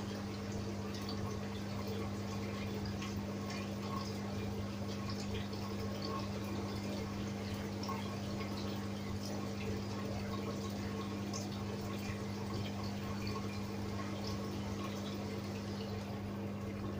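Water bubbling and trickling in a fish-spa tank, with many small drips over a steady low hum from the tank's circulation.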